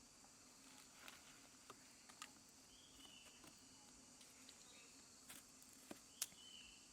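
Faint steady chorus of forest insects. A short call repeats three times, about three seconds apart, and scattered sharp clicks come through it.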